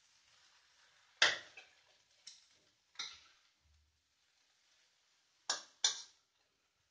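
A spatula knocking and scraping against a stainless steel wok as water spinach is tossed in a stir-fry. There are five sharp strikes: a loud one about a second in, two smaller ones, then two close together near the end.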